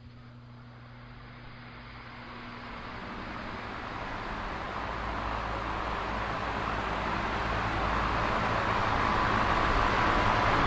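Electric fan running: an even rushing noise with a low electrical hum beneath it, growing steadily louder throughout.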